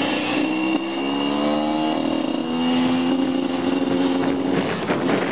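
Motorcycle engine accelerating: its pitch rises for a couple of seconds, holds steady, then turns rougher near the end.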